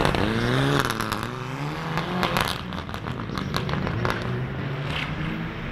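Rally car engine revving hard as the car accelerates out of a hairpin, its pitch climbing in steps through quick gear changes. A run of sharp cracks and pops comes with it for the first couple of seconds, then a steadier engine note follows.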